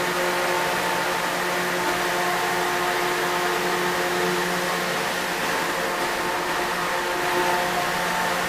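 Large drum-style shop cooling fan running steadily: an even rush of air with a steady hum of several tones beneath it.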